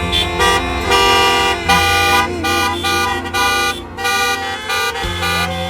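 Many car horns honking at once: overlapping steady tones that start and stop, over a low steady rumble.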